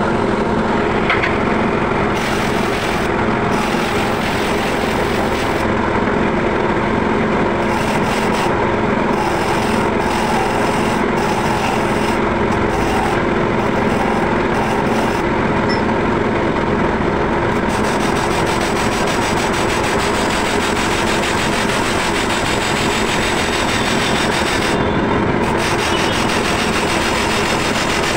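Electric grinding wheel running with a steady hum while a steel chaff-cutter blade is sharpened against it. The harsh grinding rasp comes in short bouts at first, then runs almost continuously for the last ten seconds, with one short break.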